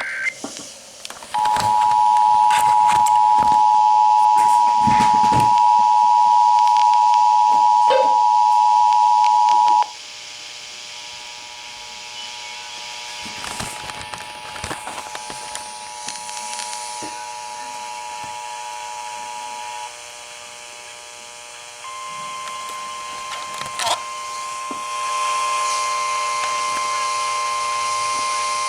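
Emergency Alert System broadcast received over radio with crackling static. The tail of a SAME data burst is followed about a second in by the loud two-tone attention signal for roughly eight and a half seconds. It then drops to a fainter steady tone, and about two-thirds of the way through a single steady tone of about 1050 Hz, the NOAA Weather Radio warning alarm, comes in.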